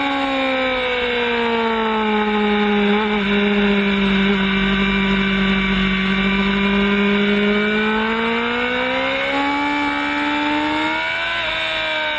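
Racing sport motorcycle engine heard on board at speed. The engine note falls over the first few seconds and holds steady at a lower pitch through a long corner. It then climbs again as the bike accelerates out, with a brief dip near the end.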